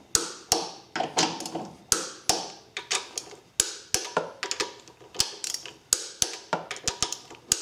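Torque wrench on the engine mount nuts and bolts, giving a string of sharp metallic clicks at an uneven pace, a few a second, as the fasteners are rechecked at 33 foot-pounds.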